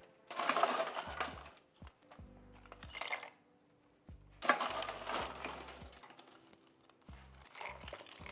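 Ice cubes clattering into a glass cocktail shaker as it is filled with ice, in four bursts of rattling, the third the longest and loudest. Quiet background music runs underneath.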